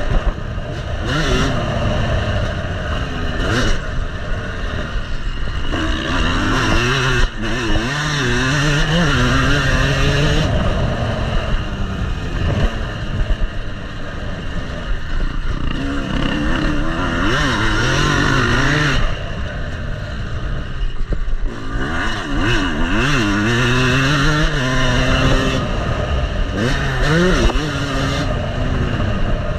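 Yamaha motocross bike's engine revving up and dropping off again and again as it is ridden hard around a dirt track, pitch climbing under throttle and falling between corners, with wind rush on the on-bike camera microphone.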